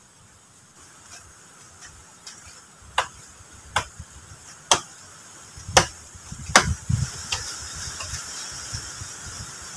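Sharp wooden knocks and clicks, about one a second and loudest in the middle, as the poles of a bushcraft shelter frame are handled and knocked together. A rustling hiss rises in the second half.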